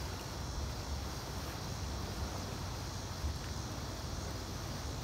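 Steady outdoor background noise: an even hiss over a fluttering low rumble, with a faint knock about three seconds in.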